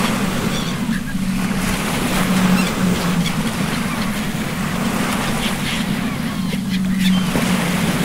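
Rough open-sea waves washing and wind, with a steady low hum underneath. Faint short seabird calls come through now and then.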